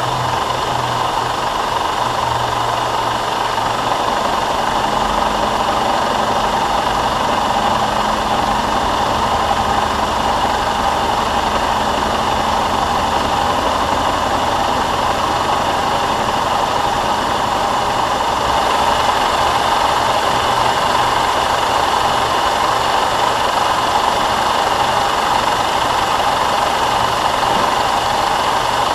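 DoAll vertical milling machine cutting a 1/2-inch keyway into a cold-rolled steel shaft with an end mill: a steady run of motor hum and cutting noise under the hiss of a Kool Mist air blast clearing the chips from the cut.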